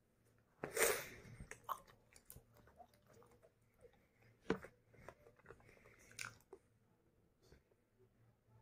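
A person chewing a mouthful of a paneer tikka wrap with the mouth closed. Faint mouth clicks and smacks come now and then, with one louder noise about a second in.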